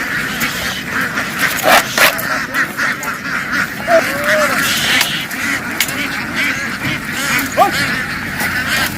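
A large flock of farm ducks quacking loudly, many calls overlapping in a continuous din.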